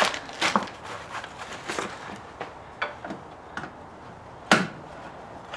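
Scattered sharp plastic clicks and clacks from plastic trim-removal tools being handled and pried at the plastic clips that hold a Nissan Frontier's grille. The clicks come at uneven spacing, with one louder click about four and a half seconds in.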